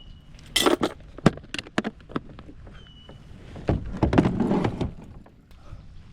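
Knocks, clunks and scraping of a kayak being handled: several sharp hits in the first second and a half, then a longer scraping clatter around four seconds in.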